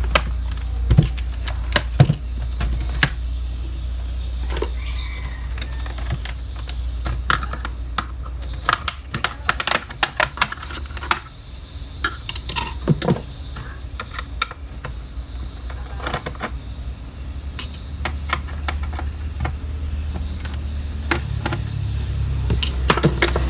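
Irregular sharp clicks, taps and light rattles of plastic and small metal parts as a Toshiba laptop is taken apart by hand: the case is handled and a screwdriver is worked under the keyboard's edge. A steady low hum runs underneath and drops away for several seconds midway.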